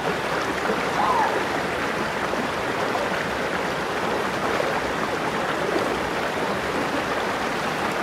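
Shallow stream flowing over rocks, a steady rushing of water.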